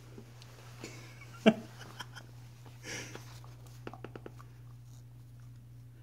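A collie puppy and a white-bellied caique at play: sniffing breaths, one short sharp cry from one of the animals about a second and a half in, and a quick run of about five clicks a little past halfway.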